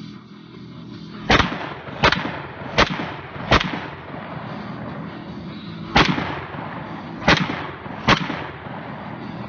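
Seven rapid semi-automatic shots from a 1942 M1 Garand rifle firing .30-06 rounds. The first four come about three-quarters of a second apart, then after a pause of over two seconds three more follow, each shot trailing off in echo.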